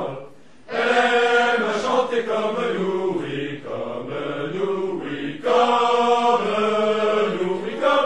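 A group of voices singing a French song, the notes held long, with a brief break about half a second in and another about five and a half seconds in.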